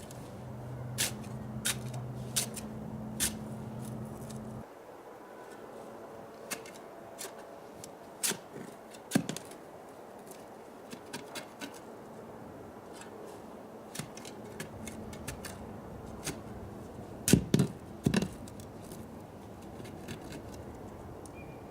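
Scattered sharp clicks and knocks of hardware and tools being handled while assembling, with a few louder knocks near the end. A steady low hum plays for the first few seconds and stops abruptly.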